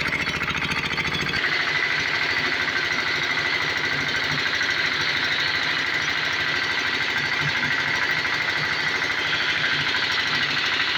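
Stationary diesel engine running steadily under load, belt-driving a paddy-husking rice mill as grain is fed through, with a fast regular knocking. About a second and a half in, the deep pulsing eases and a steady high hum from the running machinery comes in.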